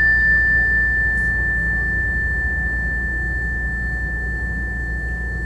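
A struck meditation bell rings out as a single high, clear tone that slowly fades, over a low steady hum. It marks the end of a guided meditation.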